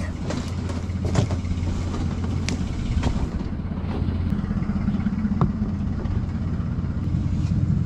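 A vehicle engine idling steadily, with a few short knocks and clicks over it.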